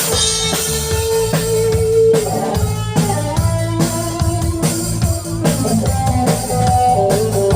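Band music at a stage sound check: a drum kit keeps a steady beat under a bass line, while a melody plays long held notes that step to new pitches every second or two.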